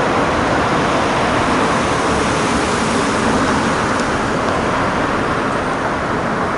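Steady road traffic noise, a continuous even rush of passing vehicles.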